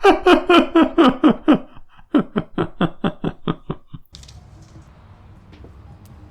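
A person laughing hard in two runs of quick "ha-ha" pulses, about five a second, that die away about four seconds in, leaving a low steady background hum.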